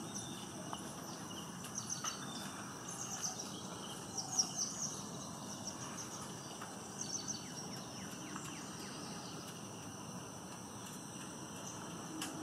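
Grey wagtail singing short, high twittering phrases, in bursts about 2 to 5 seconds in and again around 7 seconds, over a steady high drone of insects.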